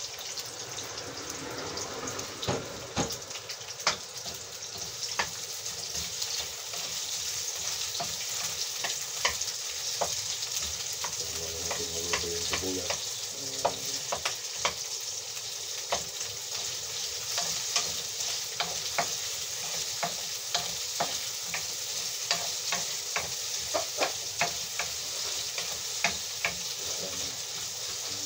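Garlic sizzling in hot oil in a frying pan, with a spatula scraping and clacking against the pan as it is stirred. The clacks come irregularly and are more frequent in the second half.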